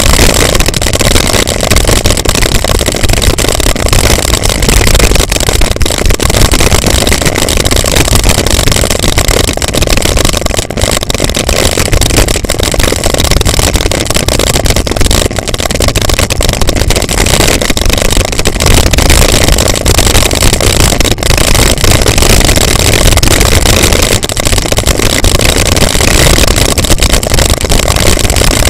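Wind rushing over the microphone of a bicycle-mounted camera on a fast descent down a gravel road, with tyres crunching and frequent knocks and rattles over the bumps.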